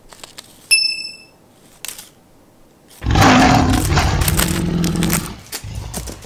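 A short, bright ding about a second in. Then, about three seconds in, a loud, rough rumbling noise lasting about two seconds as a cat lunges at a pompom wand toy right beside the microphone.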